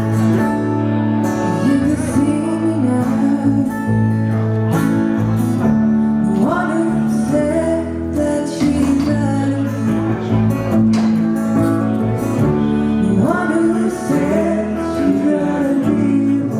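A woman singing a slow song over guitar accompaniment, with sustained notes held underneath.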